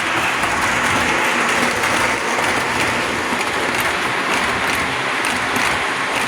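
Lionel Alco PA three-rail model diesel train running steadily along the track, with the continuous rushing noise of the wheels and the large can motors, and faint light clicks over the rail.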